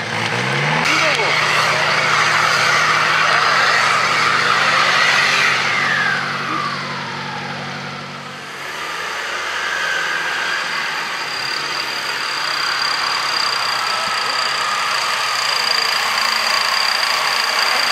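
Off-road 4x4 engines revving hard under load while driving through deep mud, the revs climbing at the start and held high. Partway through the sound changes abruptly to a lower, steadier engine note, with a thin high whine running over it in the second half.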